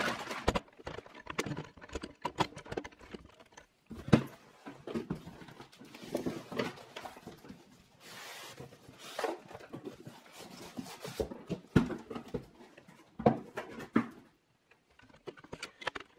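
A cardboard box and plastic-wrapped foam packaging being handled as an electronic keyboard is lifted out of it: irregular knocks and thumps, with a stretch of rustling about halfway through. The loudest knock comes about four seconds in.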